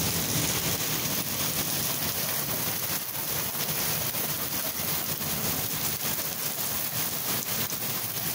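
Rain falling steadily: an even hiss with many small drop hits throughout.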